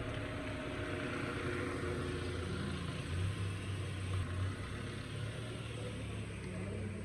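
Haval H6 SUV's engine running at low speed as the car creeps forward past, a steady low hum with tyre noise that swells slightly about three seconds in.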